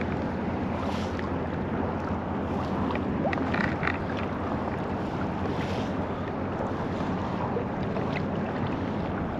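Steady wind buffeting the microphone over water lapping against a kayak's hull, with a few faint clicks about three and a half seconds in.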